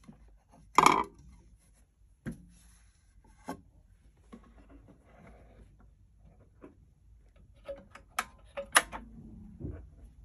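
Clicks and knocks from handling the brass tone arm and reproducer of a 1915 Pathé phonograph. The loudest comes about a second in, with a few lighter ones after and a quick cluster near the end.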